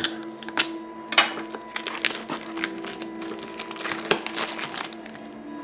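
Plastic wrapping being torn open and pulled off a boxed book set, crinkling and crackling unevenly, with a few sharper crackles near the start and about four seconds in.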